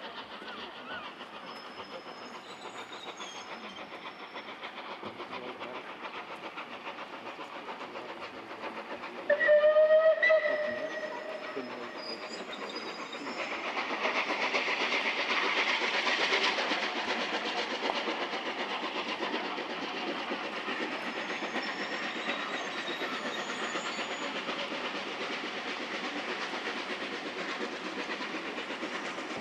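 A train whistle sounds once for about a second, about nine seconds in, the loudest sound here. From about halfway, a steady rail noise builds as a steam locomotive working hard under a heavy plume and a diesel multiple unit approach on the double track.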